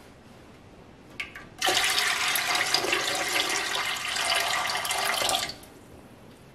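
Water poured from a pitcher into an empty stainless pressure canner, splashing onto the metal rack at the bottom. The pour starts about a second and a half in, runs steadily for about four seconds, then stops. This is the canner being refilled to its fill mark to measure how much water boiled off during processing.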